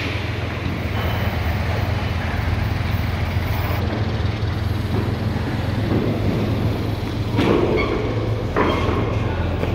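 Truck-mounted crane's engine running steadily, driving its hydraulics while a bundle of steel hollow sections is lowered on slings. Two sharp metal clanks near the end as the steel bundle is set down.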